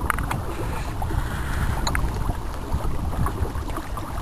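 Canoe under way under a small electric trolling motor: water rushing and lapping along the hull, with wind buffeting the microphone and a few light knocks, one near the start and one about two seconds in.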